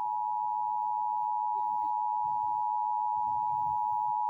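Emergency Alert System attention signal: a steady two-tone beep just under 1 kHz, the paired 853 and 960 Hz tones, held unbroken to announce an emergency alert.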